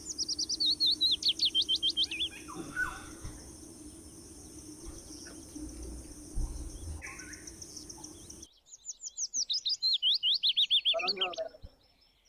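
A songbird singing two fast trills of repeated notes, each phrase stepping down in pitch: one at the start and another about nine seconds in. A steady high insect drone runs underneath and cuts off abruptly about eight and a half seconds in.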